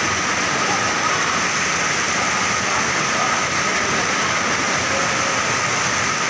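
Steady, even rushing noise like running water, with a faint high steady whine over it.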